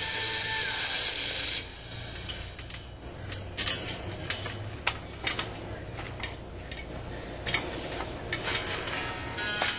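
Trampoline springs and frame creaking and clanking as people shift and step on the mat, in scattered sharp clicks and knocks. A stretch of music stops abruptly about a second and a half in.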